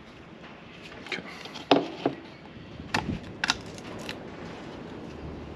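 Plastic clicks and knocks from a funnel being set into an engine's oil fill neck and a plastic jug of engine oil being handled and opened, with several sharp knocks, the loudest about two seconds in. A low steady hum comes in near the end.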